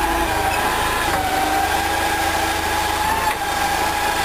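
Forklift truck running with a steady whine and low hum; the whine steps down in pitch about a second in as the hydraulic mast levers are worked.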